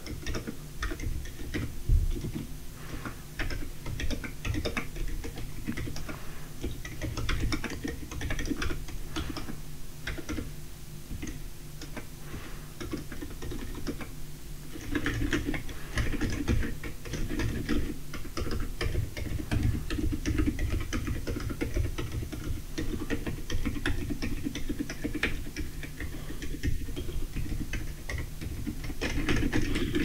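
Continuous typing on a Lumberjack mechanical keyboard in an aluminium case: a rapid, irregular patter of quite muted key-switch clicks. A low steady hum runs underneath.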